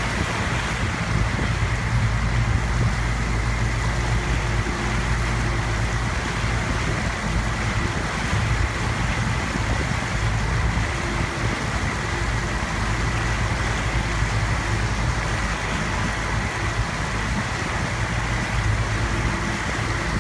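Motorboat engine running steadily at cruising speed, a low drone with a thin high whine over it, under the rushing of water churned up in the boat's wake.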